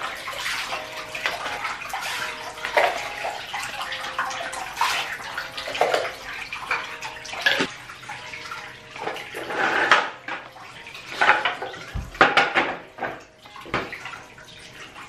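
Water pouring from the tap into a filling bathtub: a steady rush of running water with uneven louder splashing surges.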